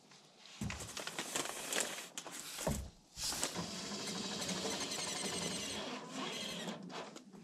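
A few knocks and rustles of lumber being handled, then a handheld cordless drill runs steadily for about three seconds, driving a screw to fasten a wooden whaler board to the bracing brackets on the foundation forms.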